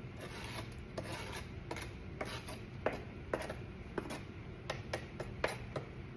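Cut cabbage being handled and put into a pot: crisp leaves rustling and rubbing, with irregular light knocks, about one or two a second.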